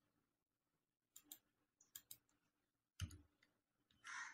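A computer keyboard being typed on, faint and sparse: about five soft key clicks spread over the few seconds, with a brief soft rush of noise near the end.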